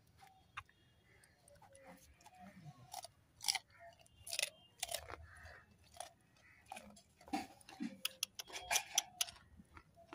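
A muntjac deer biting and chewing raw cauliflower: irregular crisp crunches, with the loudest bites a few seconds in and again near the end.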